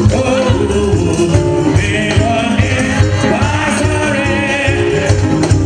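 Live gospel music: a group of women singing together into microphones, over keyboard and a steady beat.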